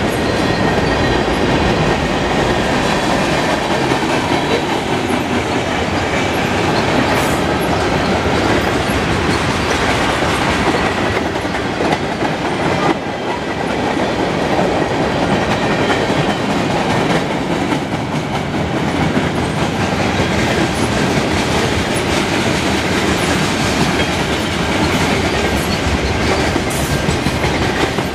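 Freight cars (covered hoppers, tank cars, box cars) rolling past on steel wheels: a loud, steady rumble and clatter of wheels running over the rail, with the level dipping slightly about halfway through.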